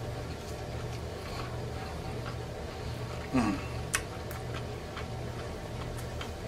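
Mouth sounds of a person chewing fried catfish with the mouth closed: sharp wet lip-smack clicks about four and six seconds in, and a short falling 'mm' of the voice a little after three seconds.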